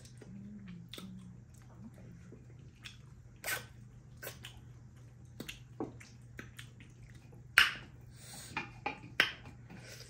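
Two people eating with their hands: wet chewing, lip smacks and sucking on pieces of meat, with a few louder smacks or slurps about three and a half, seven and a half and nine seconds in. A steady low hum runs underneath.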